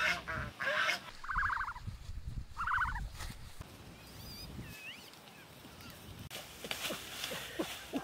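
Domestic geese honking: a short call about half a second in, then two loud honks about one and a half seconds apart, after which the calls go quiet.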